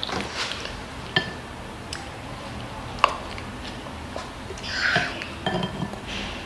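Wooden spoon tapping and scraping against a plate and a glass soup bowl while eating, a scatter of short sharp clicks, the sharpest about one and three seconds in and a busier run of taps and scrapes near the end.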